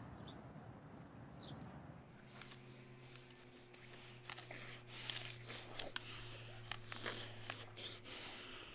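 Quiet indoor room tone with a steady low hum that starts about two seconds in. Over it come scattered light knocks and rustles from apples piled on a leather couch being handled.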